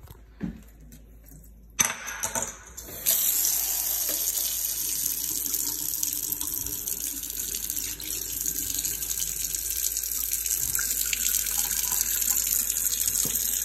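A few short knocks, then a kitchen faucet's water starts about three seconds in and runs steadily into a white sink basin.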